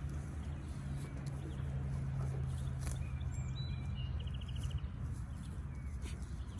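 Goats and a steer grazing, with sharp crunching clicks of grass being torn and chewed. Birds sing throughout, including a short quick trill about four seconds in, over a steady low hum that fades near the end.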